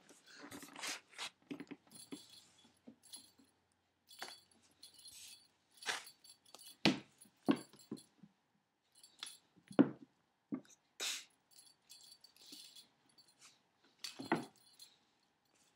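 Scattered knocks, thumps and scuffles of cats' paws and bodies on a hardwood floor as two cats play, one of them a cat with cerebral hypoplasia tumbling over as she loses her balance. The loudest knocks come about halfway through and again near the end.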